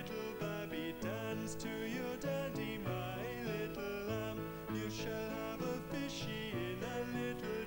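Background music: an instrumental tune with a steady rhythm.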